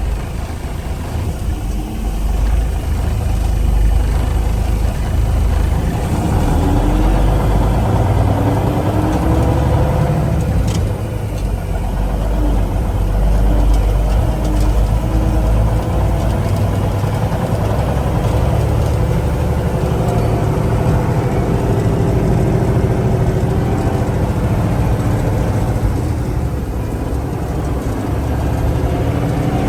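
1966 Kenworth W900 dump truck's straight-piped diesel engine running under load on a drive. Its pitch rises and falls as it pulls, with a short dip in loudness about eleven seconds in.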